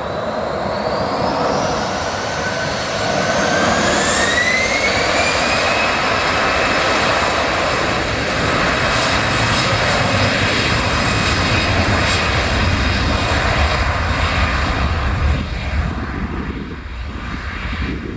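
Airbus A320's twin jet engines at takeoff power on the takeoff roll: a whine that rises in pitch over the first five or six seconds as the engines spool up, then a steady loud roar with a deep rumble, easing slightly near the end as the aircraft accelerates away and rotates.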